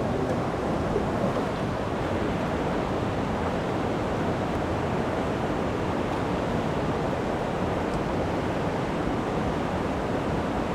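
River water rushing steadily close by, an even hiss with no breaks.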